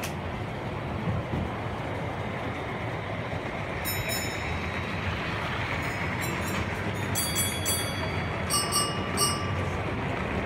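Steady running noise of model trains on an exhibition layout, with several short, sharp metallic clinks in the second half.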